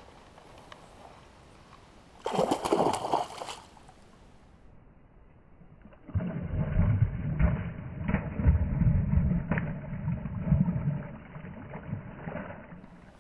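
A hooked pike thrashing and leaping at the surface, splashing water. A short loud rush comes about two seconds in, then from about six seconds a long run of heavy, low, muffled splashing with repeated sudden slaps.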